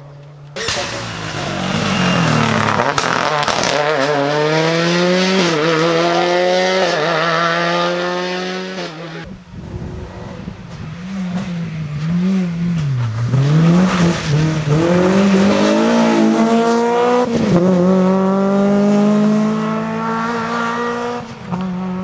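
Rally car engines revving hard as the cars accelerate past one after another, each climbing in pitch and dropping back at every upshift. In the second pass the revs swing up and down several times as the throttle is lifted and reapplied, before pulling up through the gears again.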